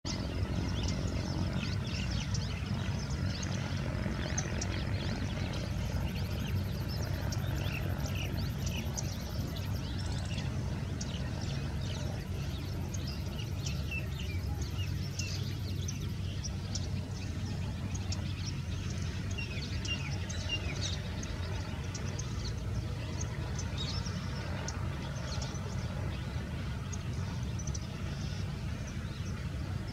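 A steady low engine hum, with many short, high bird chirps and calls scattered over it.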